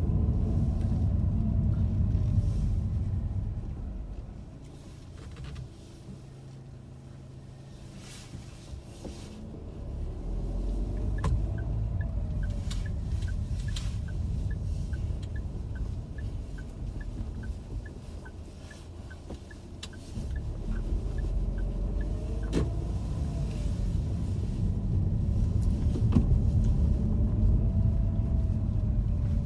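Car driving slowly, its low engine and road rumble falling away for several seconds early on, then picking up again. Through the middle stretch a turn-signal indicator ticks evenly, about three times a second.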